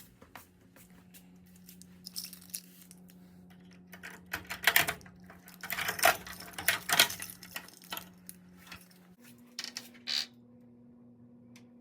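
Light clicks, clinks and rattles of small objects being handled, loudest in a run of clattering bursts in the middle, over a steady low hum that shifts up in pitch near the end.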